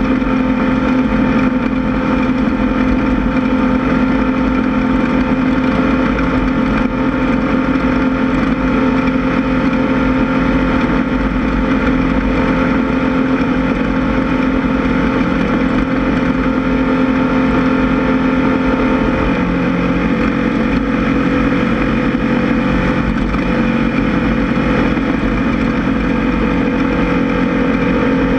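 Air-cooled VW engine of a Class 1600 off-road race buggy running hard at nearly steady revs over a low rumble, with a small shift in pitch about two-thirds of the way through.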